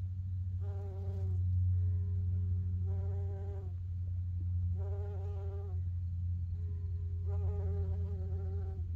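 Bumblebee buzzing in short bursts of half a second to a second, about five times, its buzz coming and going. A steady low hum runs underneath and is louder than the buzz.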